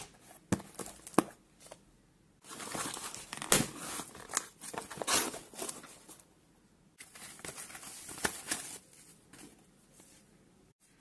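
A cardboard shipping box being opened by hand: the cardboard flaps and foam packing rustle and crinkle in irregular bursts, with a few sharp clicks, dying down near the end.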